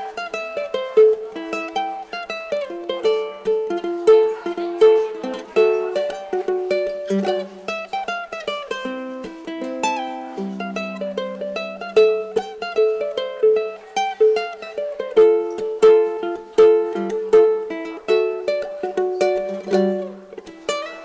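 Instrumental background music: a ukulele picking a quick melody of short plucked notes over held lower tones, steady throughout.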